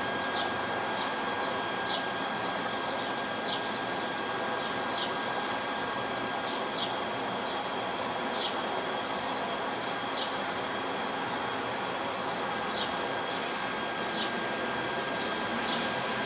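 Steady city background noise with a faint steady whine, and a small bird chirping over it in short high chirps, roughly one every second or so.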